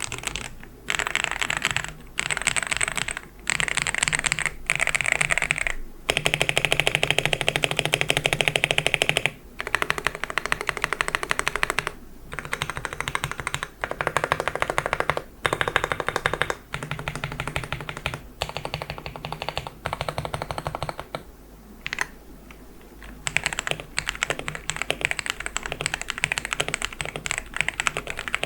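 Typing on a LEOBOG Hi98C Pro mechanical keyboard fitted with White Dragon switches: fast runs of keystrokes in bursts of a few seconds with short pauses between them, and a quieter lull a little past two-thirds of the way through.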